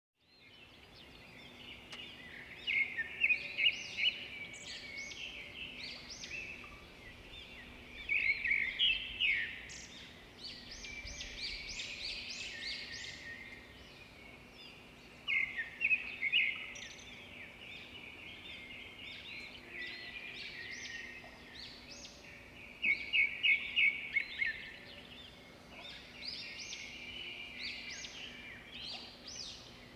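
Small birds chirping in bursts of rapid high notes every few seconds, over a faint steady hum.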